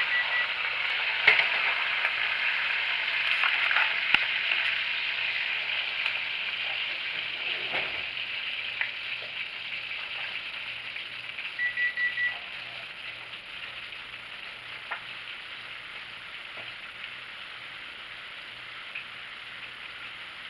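Hot oil and pan juices sizzling around a whole roast chicken in a stainless steel skillet fresh from the oven, the sizzle slowly dying down as the pan cools. A few clicks, a short high electronic beep at the start and a quick run of beeps about twelve seconds in.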